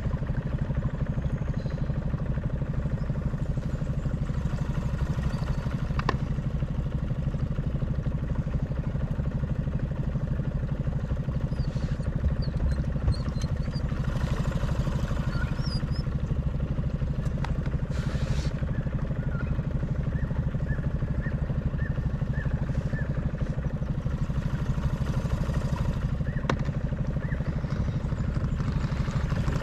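Small boat's motor running steadily at low speed: an even low hum with no change in pitch.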